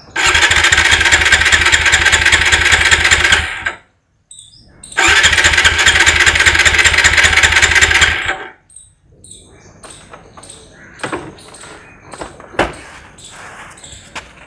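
TVS Apache RTR motorcycle's electric starter cranking its single-cylinder engine in two long attempts of about four seconds each, both stopping abruptly without the engine catching. A few light clicks and knocks follow.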